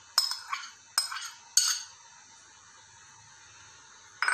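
Steel spoon knocking and scraping against a glass bowl while scooping out diced fruit: three sharp clinks in the first couple of seconds, then a short clatter of the spoon on glass near the end.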